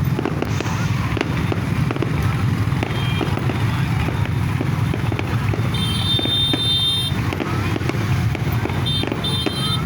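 Fireworks going off: many sharp pops and crackles scattered over a dense low rumble. A high, steady tone sounds for about a second about six seconds in, and again briefly near the end.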